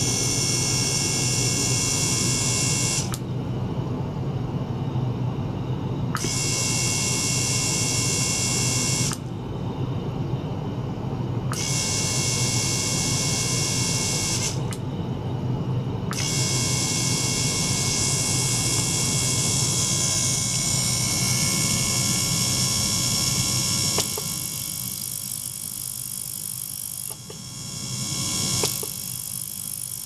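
A small water-circulation pump hums steadily under a high-pitched whine of several steady tones from the ultrasonic transducer. The whine switches on and off every few seconds, then stays on for a longer stretch. Near the end the pump sound drops and there are a couple of clicks.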